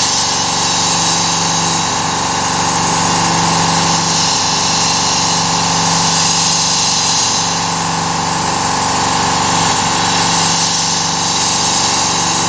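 Carvera Air desktop CNC mill running a cut: a steady spindle whine with cutting noise and air-assist hiss. A lower hum underneath breaks off briefly every couple of seconds as the machine moves along its toolpath.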